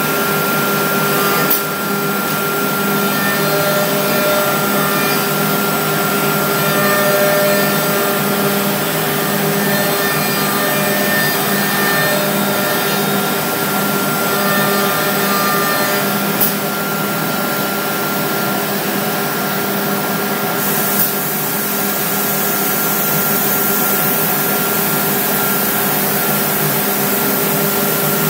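Homag CNC machine running on PVC fittings: a loud, steady machine noise with several constant tones. There are three brief sharp clicks, one near the start, one about halfway and one a few seconds later.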